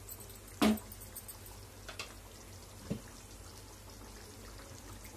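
Thick tomato pulusu simmering in a nonstick pan with faint bubbling. A wooden spatula knocks sharply against the pan about half a second in, and a couple of fainter clicks follow.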